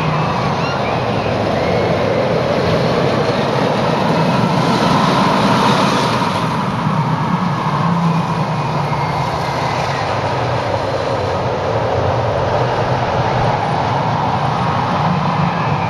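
Steel roller coaster train rolling along its track, a steady rumbling that swells a little about four to six seconds in.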